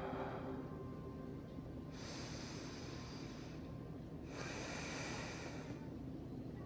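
Slow, deep sleep breathing of a person: two long breaths, one starting about two seconds in and the next right after it, over a low steady background hum.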